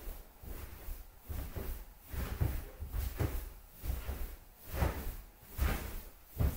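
A large rubber balloon being pressed and bounced on, with a thud and a rubbery rub about once a second as the weight goes onto it.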